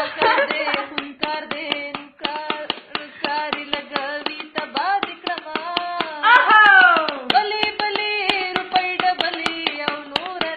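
A woman singing, with long held notes and a falling slide a little past halfway, over quick, rhythmic handclapping.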